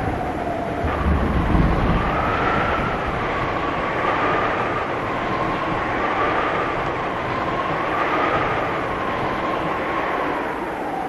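Typhoon wind rushing steadily, with a howling whistle that slowly rises and falls about every two seconds and a low rumble about a second in.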